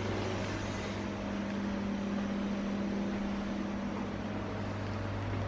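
Steady machine hum: a low drone with a faint hiss, one tone swelling slightly through the middle.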